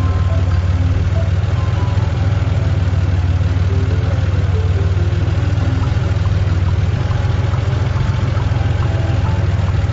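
Steady low engine rumble of a road roller at work, a cartoon sound effect, with a light melody of short notes playing over it.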